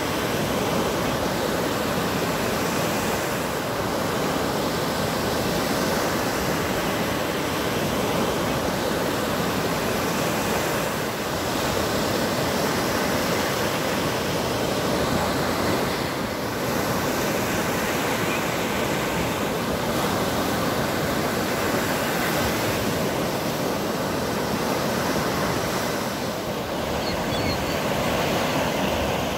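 Lake Michigan waves breaking and washing up a sandy beach: a steady rush of surf that swells and eases slightly.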